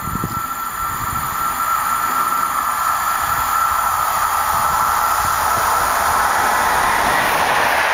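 EU44 electric locomotive hauling an express passenger train, approaching at speed: the rushing rail and wheel noise grows steadily louder, with a steady high ringing tone over it. A few low wind buffets on the microphone die away in the first half-second.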